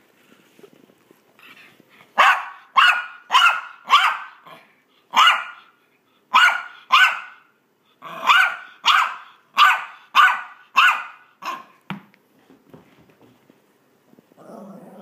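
Maltese dog barking during play: a run of about fourteen sharp barks in three quick groups, about two a second, with short pauses between the groups.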